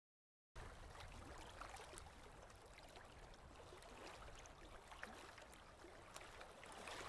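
Faint lapping and trickling of small ripples at the water's edge, with scattered small ticks and a low rumble underneath, starting suddenly about half a second in after total silence.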